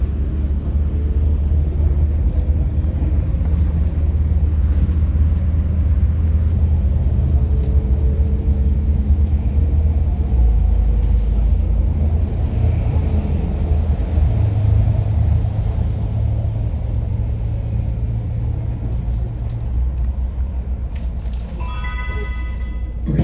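Interior drone of a MAZ-105 city bus underway: a steady low diesel engine and drivetrain rumble whose pitch steps a few times as the bus changes speed. Near the end a short electronic chime sounds.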